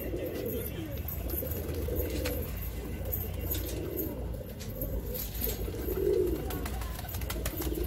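Domestic pigeons cooing: low throaty coos that come in spells, loudest about six seconds in and again at the end.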